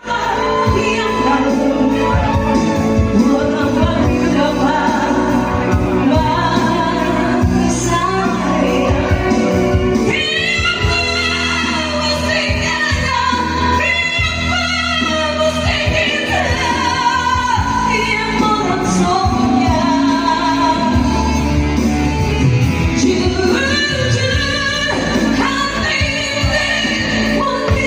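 A woman singing over pop-style backing music, her voice trembling with a wide, wavering vibrato.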